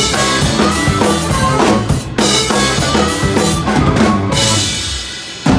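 Live rock band playing, with the drum kit loudest (bass drum and snare) over pitched instruments. About four seconds in, the high cymbal wash drops out and the sound thins and gets quieter.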